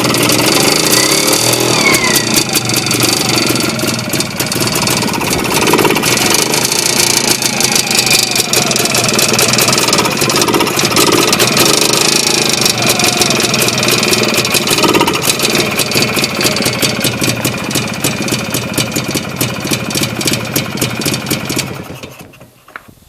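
Engine running, with a fast, even ticking over it: the extraneous noise being checked. The sound fades away about a second before the end.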